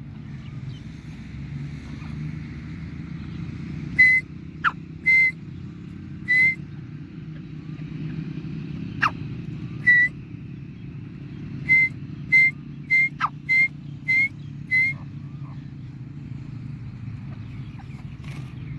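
Short, high whistled notes, about ten of them, scattered and then in a quick run near the middle, with a few sharp downward chirps among them. A steady low hum runs underneath.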